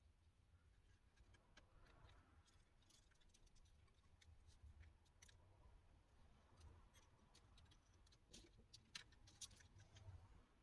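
Near silence with faint, scattered clicks and ticks of small laptop parts and tools being handled while the mainboard is taken out, a few sharper clicks near the end.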